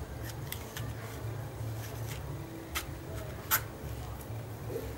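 Hands working apart the fibrous husk of a palmyra palm fruit: a scatter of sharp clicks and snaps, the loudest about three and a half seconds in, over a steady low rumble.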